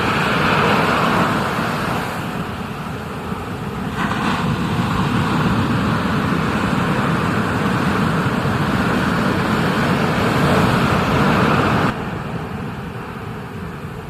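Steady rushing noise of ocean water and wind around a surfer's POV camera, louder about four seconds in and dropping off suddenly near the end.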